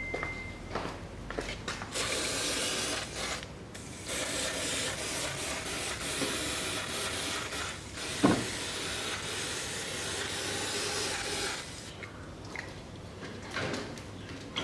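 Aerosol carburettor cleaner spraying in two long hissing bursts, one of about two seconds and then one of about seven seconds, washing oil residue off the underside of the car. A short knock sounds near the middle of the second burst.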